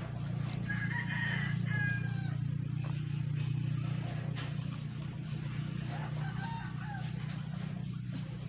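A rooster crowing, a pitched call of about a second starting about a second in, and a second weaker crow around six seconds in. A steady low hum lies under it.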